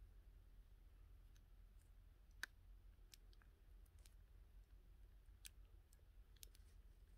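Near silence with a steady low hum and a handful of faint, scattered clicks.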